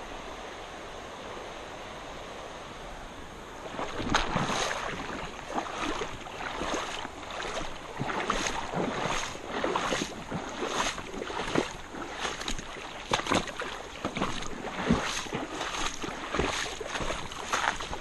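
Steady rush of flowing creek water, then from about four seconds in, irregular splashing steps about one to two a second: someone wading through shallow creek water.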